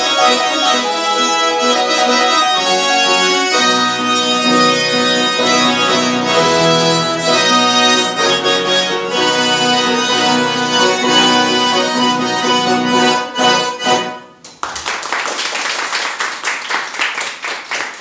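Two accordions playing a duet, closing with a few short, separated chords about fourteen seconds in. Applause follows to the end.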